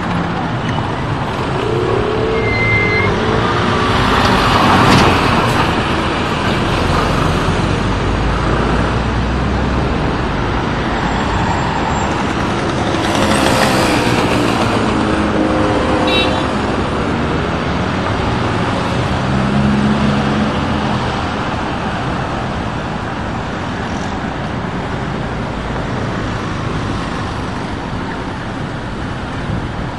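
Van Hool New A308 city bus engine running in street traffic, its pitch rising and falling as it works. There are two louder rushes of noise, about four seconds in and again around thirteen seconds.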